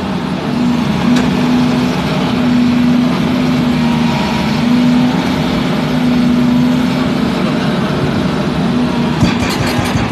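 Volvo EC210B excavator's diesel engine and hydraulics running steadily under load with a constant hum. About nine seconds in, a fast, even train of blows from its hydraulic breaker begins, several strikes a second.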